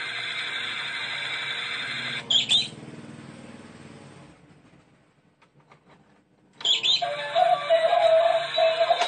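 Tinny electronic tune from a cat-house coin bank toy. It breaks off after a short clatter about two and a half seconds in and fades to near silence with faint ticks. The tune starts up again about two-thirds of the way through.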